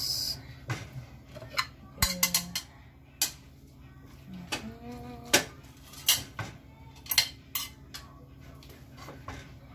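Utensils clinking and scraping against a plate and pan as food is served: an irregular string of short clicks and knocks, a few of them ringing briefly.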